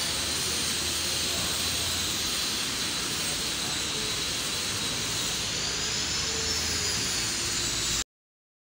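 Steady rushing noise like running machinery, with a faint high whine over it; it cuts off suddenly about eight seconds in.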